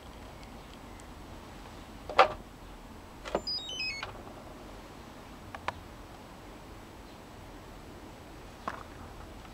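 A sharp click from handling a hand-held radio-control transmitter, then about a second later a short run of electronic beeps stepping down in pitch as the transmitter is switched on. A few faint handling clicks follow.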